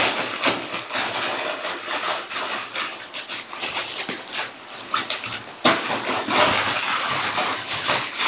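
Plastic packaging crinkling and rustling as it is torn open and handled by hand, with many short crackles; it gets louder about two-thirds of the way in.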